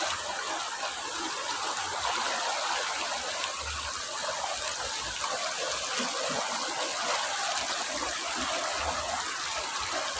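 Fast-flowing river water rushing steadily over a shallow rocky bed.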